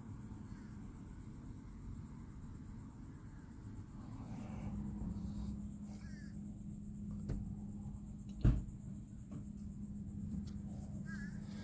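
Phone microphone handling noise: rubbing and scraping against fabric, with several clicks and one sharp knock about eight and a half seconds in. A steady low hum comes in about four and a half seconds in.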